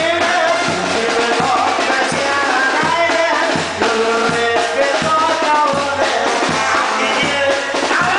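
Live Sinaloan banda brass band playing: trumpets, trombones and sousaphone over drums and percussion, with a steady beat.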